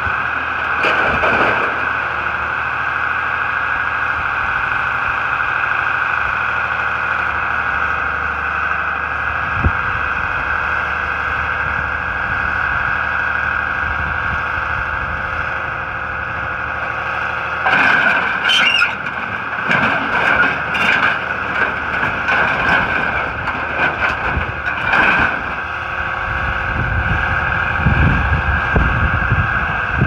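Metal baler and grapple material handler running, their hydraulics giving a steady high whine. From a little past halfway, loose scrap metal clanks and crashes as it is handled, and a deeper engine rumble builds near the end.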